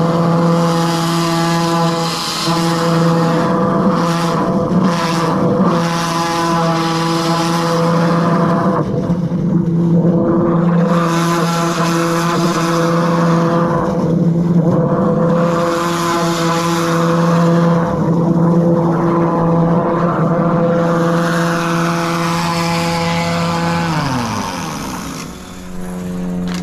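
Hydro drain jetter running steadily under load while its high-pressure hose and root cutter work roots in a sewer drain, with a hiss that surges and fades several times. Near the end the engine note falls and settles lower.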